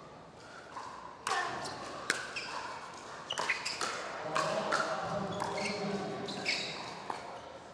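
Pickleball paddles striking the plastic ball in a rally: a series of sharp pops at roughly one a second, unevenly spaced, over a low crowd murmur.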